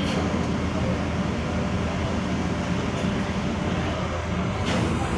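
Engines of the car ferry KMP Swarna Dharma running with a steady low hum as the ship comes in to berth. A short knock sounds near the end.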